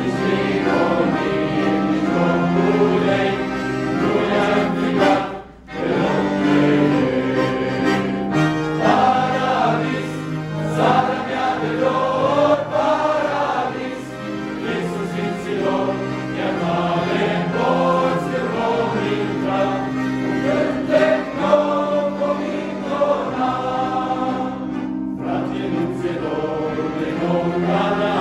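A young men's choir singing a Romanian hymn together, accompanied by several accordions playing sustained chords. There is a brief break between phrases about five seconds in.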